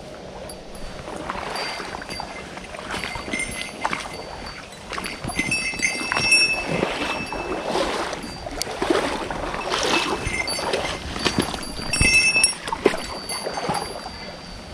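Someone wading through a shallow river: water splashing and sloshing, with irregular knocks, getting louder after about a second.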